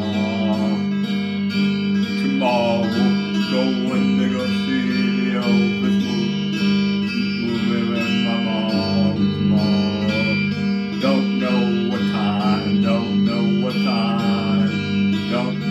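A man singing while playing an electric guitar, a continuous song with the voice entering in phrases every second or two over the sustained guitar.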